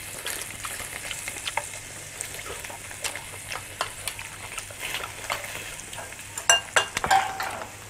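Meat sizzling steadily on a tabletop barbecue grill pan, with many light clicks of chopsticks against the pan and bowls. A few sharper, ringing clinks of tableware come near the end.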